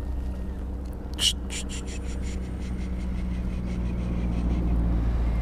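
Steady low engine drone with a low rumble under it, growing slowly louder. About a second in, a sharp click is followed by a quick run of fading ticks.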